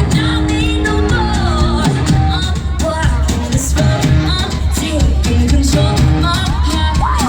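Live pop music: a female lead singer sings over a band with a heavy, steady bass.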